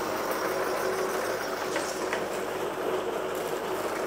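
New electric meat grinder running on its first start, a steady motor hum over grinding noise as meat is fed in. A couple of faint clicks come about two seconds in.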